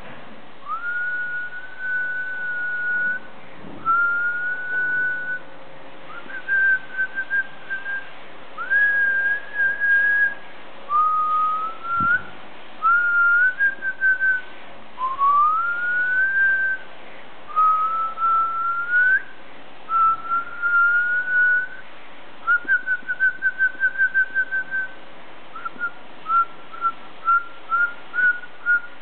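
A person whistling a string of separate phrases, each sliding up into a held note, some of them warbled. Near the end the whistle breaks into quick short chirps.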